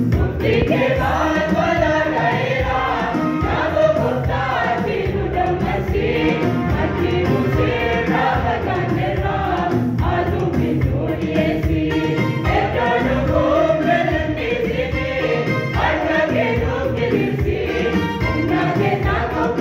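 Mixed choir of men's and women's voices singing a Christian hymn in Afaan Oromo, with continuous sung melody and no pauses.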